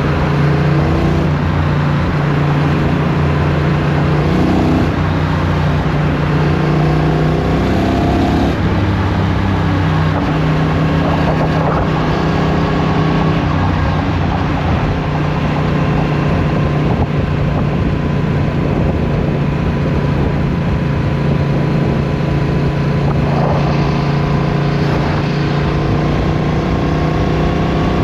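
Motorcycle engine running at highway speed under a rush of wind and road noise; its pitch climbs for several seconds and drops once about eight seconds in, then holds steady.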